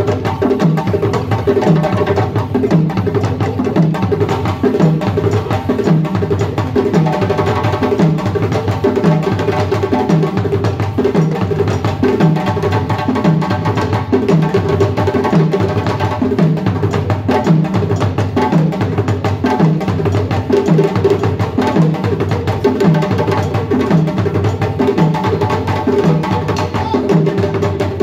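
West African drum ensemble playing together: djembes and tall rope-tuned drums struck by hand and stick, with an hourglass talking drum, in a steady driving rhythm with a low stroke about once a second.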